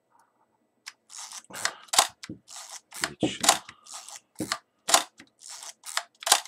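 A Zenit E SLR is being wound and fired over and over: rasping ratchet sounds from the wind mechanism, each followed by the sharp snap of the cloth focal-plane shutter, about four firings roughly a second and a half apart. This is a function test of the freshly repaired shutter.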